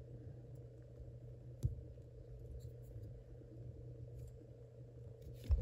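Small plastic LEGO pieces being handled and fitted together: faint clicks and rubbing, with one sharper click about one and a half seconds in and a low thump near the end, over a steady low hum.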